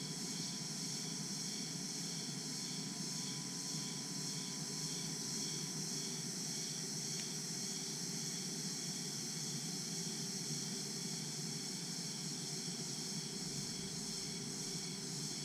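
Dense, steady chorus of crickets and other insects in tropical jungle: a constant high buzzing with a fainter pulsing layer beneath it.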